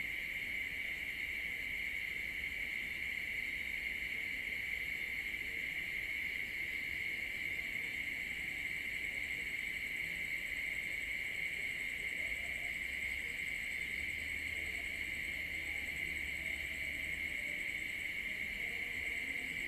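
Steady chorus of night insects, a continuous high-pitched trill that never breaks.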